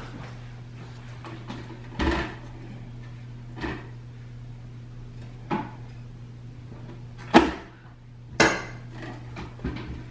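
Hard plastic parts of a Breville Juice Fountain Cold juicer being handled and set down, knocking against each other and the stone countertop: a few separate knocks, the loudest about seven seconds in, then a short rustle and some light clicks. A steady low hum runs underneath.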